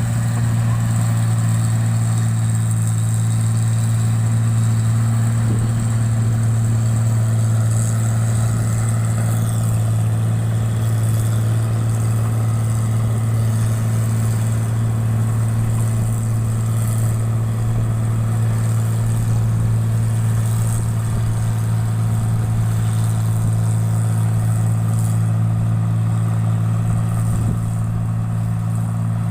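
Engine-driven paddy (rice) machine running steadily at constant speed, a loud, even low drone that does not change.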